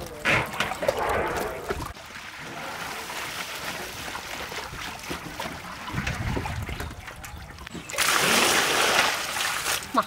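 Water splashing and sloshing in a metal basin as hands wash raw chicken wings, with a louder stretch of splashing near the end.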